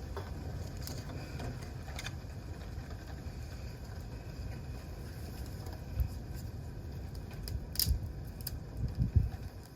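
Wood campfire burning, crackling with a few sharp pops, the sharpest about eight seconds in, over a steady low rumble.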